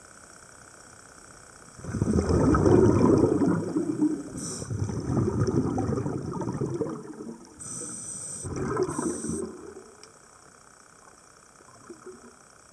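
Underwater bubbling and gurgling from a scuba diver's exhaled breath: a long burst of bubbles, then a shorter one a few seconds later, over a low steady hum.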